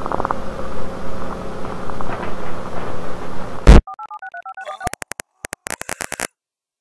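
Rumbling background noise with a faint low hum, ending in a loud crackle almost four seconds in. Then comes a quick run of touch-tone (DTMF) dialing beeps, about eight tones in under a second, followed by a string of sharp digital clicks that cuts off suddenly.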